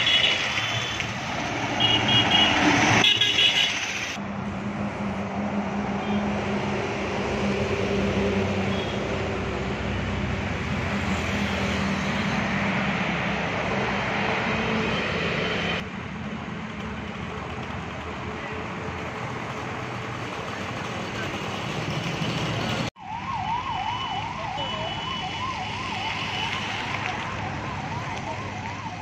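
Vehicle engine and road noise across several abruptly cut clips, with short high electronic beeps near the start. About three-quarters of the way through, a siren wailing rapidly up and down takes over.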